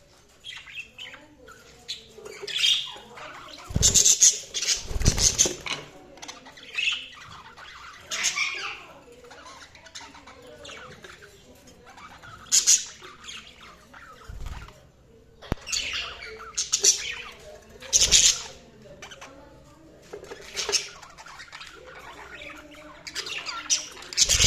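Pet budgerigars chirping and chattering in irregular bursts, with a few louder squawky moments that carry short low thumps or flutters.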